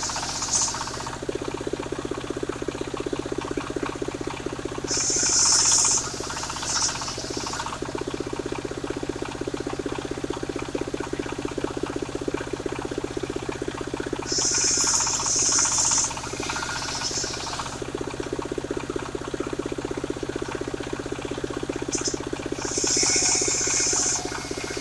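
A mobile circular saw running steadily while rip-sawing Jabon timber into strips. A high, hissing whine of the blade in the wood rises over the running sound three times, about every nine seconds, each for a second or two.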